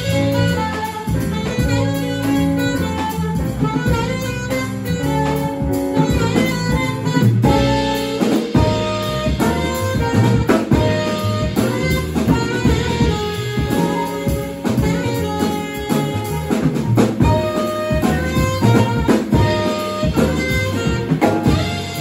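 Small jazz combo playing live: saxophone over piano, upright bass and drum kit.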